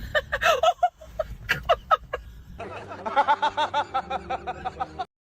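A person laughing: short snickering bursts, then a quick run of high-pitched giggles that cuts off abruptly.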